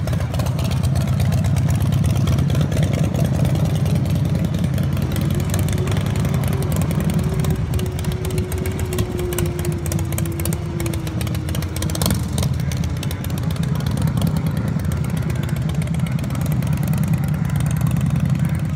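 Custom chopper motorcycle's engine running at low speed, a steady low rumble.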